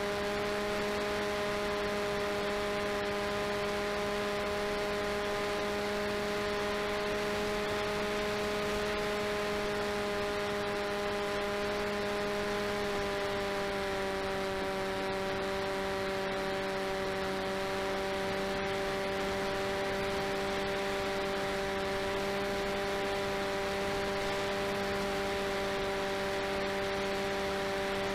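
Brushless electric motor (RCTimer 5010 630KV on a 4S LiPo) driving the delta wing's propeller in flight, a steady whine over wind hiss as picked up by the onboard camera. About halfway through the whine drops slightly in pitch as the motor slows a little.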